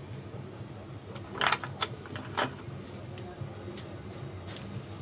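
Metal fan parts being handled during a bearing repair: a few sharp metallic clinks and a rattle about one and a half to two and a half seconds in, with lighter ticks later, over a steady low hum.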